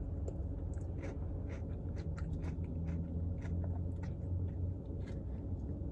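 Soft, scattered clicks and scrapes of a spoon working through a Dairy Queen Blizzard in its cup while it is eaten, over a low steady hum.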